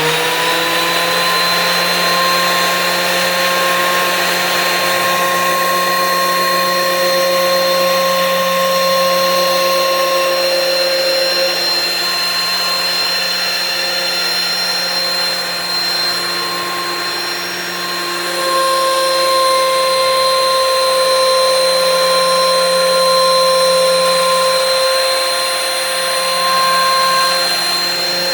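DeWalt thickness planer running at full speed, a loud steady motor and cutterhead whine, just after spinning up. The level dips briefly about two-thirds of the way through, then picks up again.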